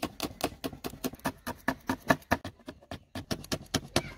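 A kitchen knife chopping green chillies finely in quick, even strokes, about five a second.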